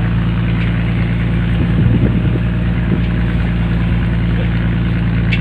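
A longline fishing boat's engine running steadily at idle, a constant low hum, with faint voices about two seconds in.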